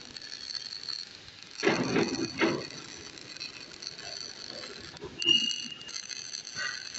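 MIG welding arc crackling steadily as a weld is run on a steel pipe. A few louder, short sounds break in about two seconds in.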